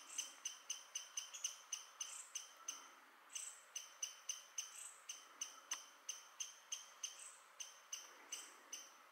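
White-eared sibia calling: a fast, even series of short, sharp notes, about four a second, with a brief pause about three seconds in.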